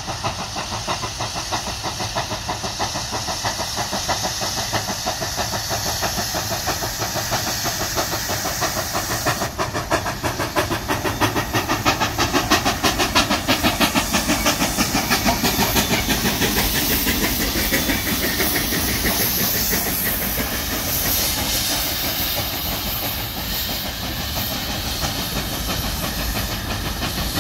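Durango & Silverton narrow-gauge steam locomotives, a double-header led by K-28 No. 476, working: a steady hiss of steam with a rapid, even pulsing chuff.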